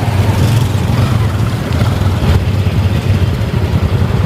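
Motorcycle running along the road, a steady low rumble of engine and rushing air.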